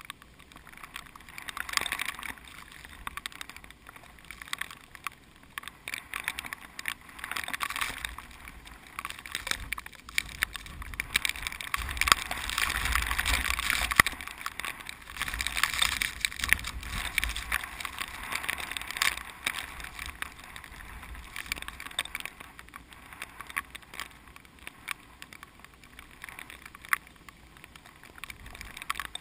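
Strong typhoon wind rushing through ripening rice plants, rising and falling in gusts every few seconds with a dry rustle. The strongest gust, about halfway through, brings a low rumble of wind on the microphone.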